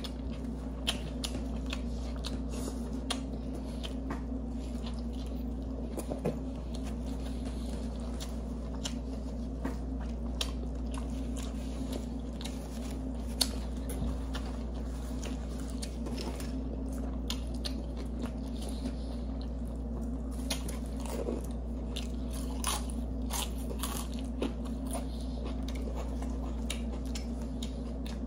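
Two people biting into and chewing sub sandwiches, eating sounds with many short sharp crunches scattered throughout, over a steady low hum.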